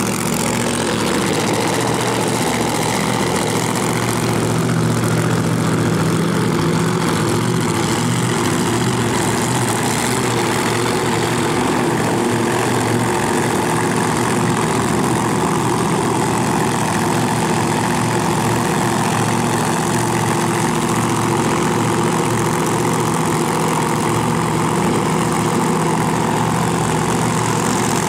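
Supercharged V8s of two doorslammer drag cars idling steadily as they creep toward the starting line, including the blower-topped engine of a 1967 Nova-bodied car.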